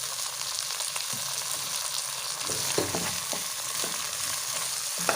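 Washed basmati rice frying in hot ghee with softened onion in a pot: a steady sizzle as it is sautéed, with a few short scrapes of stirring in the second half.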